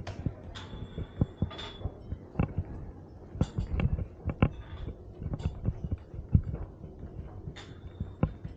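Irregular low thumps and knocks with a few sharp clicks, from walking with a camera carried on a selfie stick.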